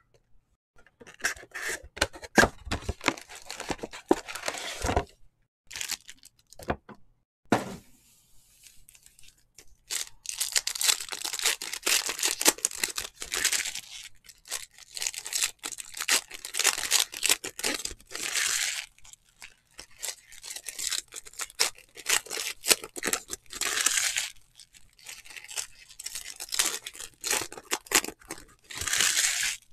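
A trading card box and its packs being torn open by hand: repeated bursts of tearing and crinkling wrapper, with a run of sharp clicks and knocks in the first few seconds.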